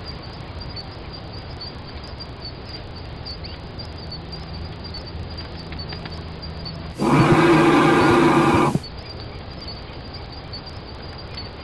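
Male great Indian bustard giving a single deep booming courtship call, about two seconds long, starting about seven seconds in and cutting off sharply: the display call that signals its presence to females. Faint insect ticking sounds underneath.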